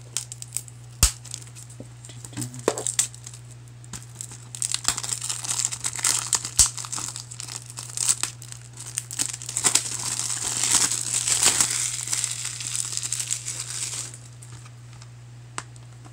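Clear plastic shrink-wrap on a Blu-ray case crinkling and crackling as it is slit with a knife and peeled off, with a few sharp clicks at first. The crinkling thickens about four seconds in and stops a couple of seconds before the end.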